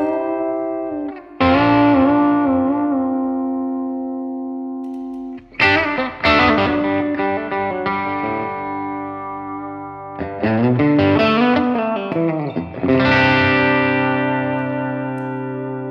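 Electric guitar played through a Blackstar HT-5R MkII 5-watt valve combo on its clean voice: chords struck and left to ring, one warbled with the vibrato arm, with short runs of picked notes in between.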